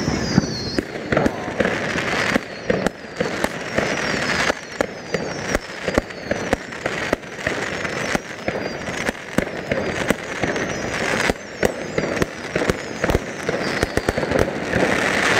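Consumer fireworks going off on all sides: a dense, irregular run of bangs and cracks from bursting aerial shells, with several high whistles falling in pitch.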